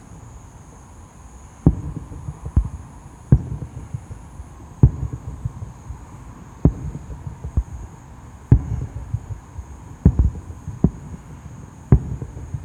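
Fireworks bursting overhead in a rapid, irregular series: about a dozen sharp booms, each followed by a low rumbling echo, roughly one a second with some coming in quick pairs.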